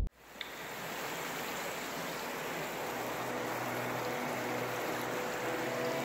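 Rushing water of a small waterfall cascading over rock ledges: a steady hiss that starts just after a short dropout and slowly grows louder. Faint music tones come in over the second half.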